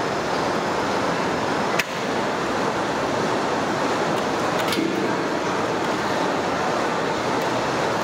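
Steady rushing noise from a big cooking fire under a large pot of boiling water, with one sharp knock about two seconds in.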